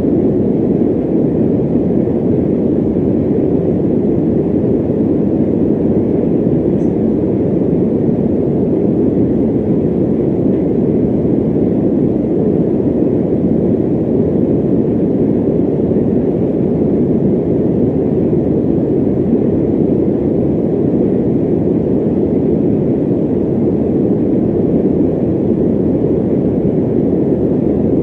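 Electric fan running steadily: an even, low rush of air with no change in level.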